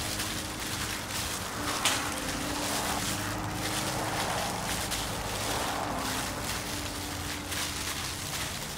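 Thin plastic food-prep gloves crinkling and rustling as hands rub a dry spice mix into strips of raw beef, with a sharper crinkle about two seconds in. A faint steady low hum lies underneath.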